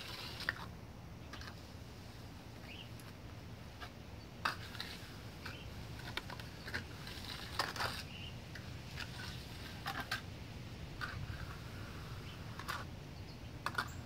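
Flat steel hand trowel smoothing wet cement in a small slab: a scattering of short scrapes and light taps of the blade on the surface, over a steady low background hum.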